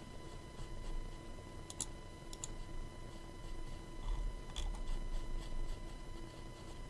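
Faint room tone with a thin steady high whine, broken by a few soft isolated clicks, the clearest about two seconds in and again past the middle.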